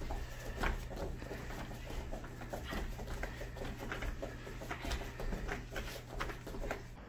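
Soft, irregular taps and rustles from children exercising on foam floor mats, over a steady low hum.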